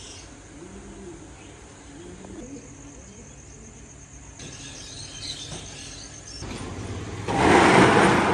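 Quiet night street background, then about seven seconds in a loud rattling clatter as the metal front of a shuttered shop is opened.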